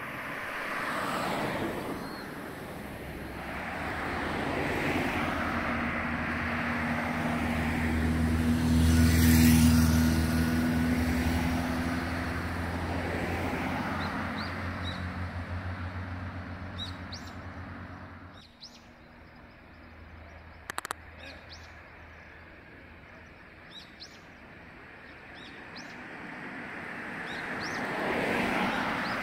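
Cars driving past one after another on a road, the engine and tyre noise swelling and fading with each pass; the loudest pass, about nine seconds in, carries a steady low engine hum. In the quieter middle stretch small birds chirp, and another car approaches near the end.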